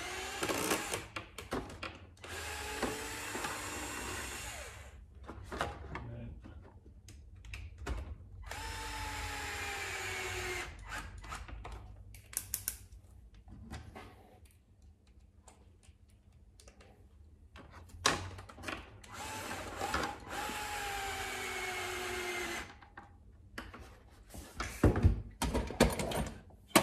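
Makita cordless screwdriver running in three bursts of two to three seconds each, driving screws into the chassis, its whine dropping slightly in pitch during each run. A few sharp clicks and knocks near the end.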